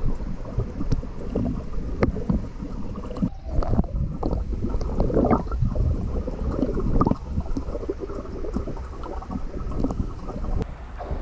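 German Shepherd paddling through swimming-pool water, heard underwater: a muffled, continuous churning and gurgling with irregular knocks.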